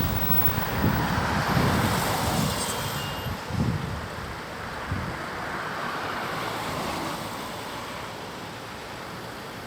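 Wind buffeting the microphone in gusts over a steady outdoor rushing noise, strongest in the first few seconds and easing after that.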